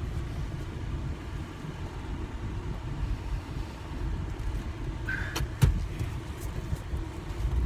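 Car running, its low steady rumble heard from inside the cabin, with a couple of sharp clicks about five and a half seconds in.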